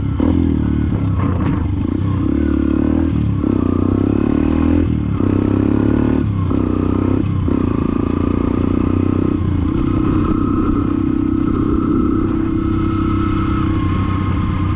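Yamaha XTZ 125's single-cylinder four-stroke engine through a Fortuna F1 mini trioval aftermarket exhaust, accelerating up through the gears while riding. The note climbs and then dips briefly at each shift, about six times.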